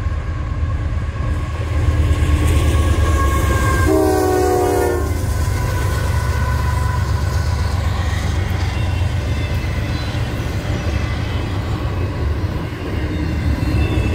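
CSX freight train passing close by: diesel locomotives rumbling and wheels running on the rails, with a short horn blast about four seconds in, then double-stack container cars rolling past.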